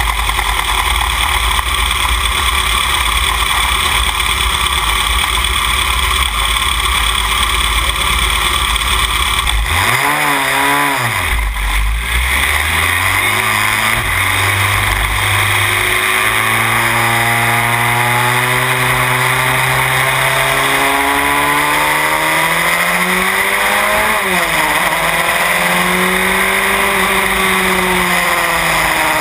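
Onboard sound of a Van Diemen Formula Renault race car at rolling-start pace. Steady rumbling wind noise at first; about a third in, the engine comes through at low revs, its pitch wavering, then climbing slowly, dipping sharply once near the end and rising again.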